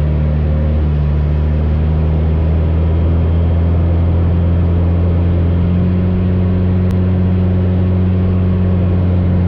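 AcroSport 2 biplane's 180 hp piston engine and propeller running at a steady drone.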